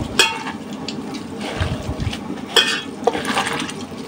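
Boiled flat beans being mashed and squeezed by hand in a stainless steel bowl for bhorta: soft squelching and rubbing, with a few ringing clinks of the steel bowl, the loudest about a quarter second in and near two and a half seconds in.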